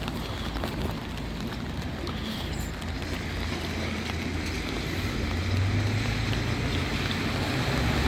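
Steady hiss of traffic on a wet road, with a vehicle's low engine hum growing louder over the last few seconds as it approaches.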